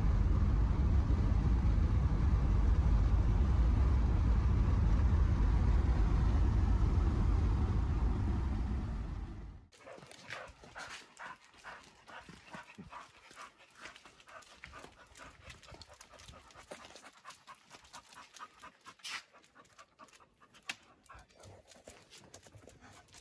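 A steady low rumble for about ten seconds that cuts off abruptly, followed by a much quieter stretch of a dog panting in quick breaths.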